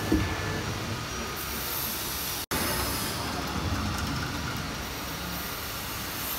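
Three-head CNC router running, giving a steady mechanical hum and whir from its spindles and gantry. The sound drops out for an instant about two and a half seconds in.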